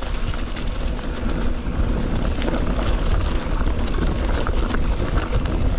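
Mountain bike rolling down a rough dirt trail: knobby tyres rumbling over the ground with small rattles and clicks from the bike, and wind buffeting the camera microphone.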